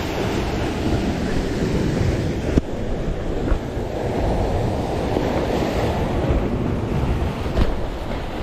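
Sea waves washing against a rocky shore, with wind buffeting the microphone. A single sharp click about two and a half seconds in.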